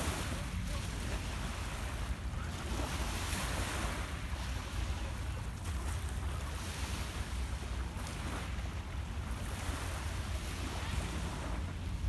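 Small lake waves lapping on a pebble shore, washing in and fading every second or two, with a steady low rumble of wind on the microphone.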